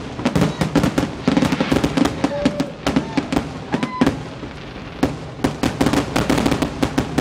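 Fireworks display going off: a dense, rapid run of sharp bangs and crackles, many a second, easing a little in the middle.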